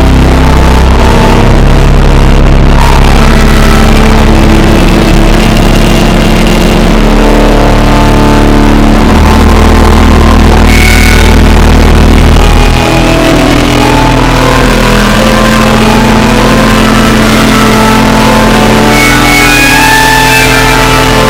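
Organ music: slow sustained chords over deep held bass notes, the chords changing every few seconds.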